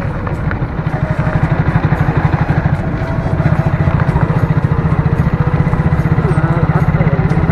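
Motorcycle engine running as the bike is ridden slowly along a rough dirt road, heard from the rider's seat as a steady low rapid pulse that grows a little louder in the first couple of seconds.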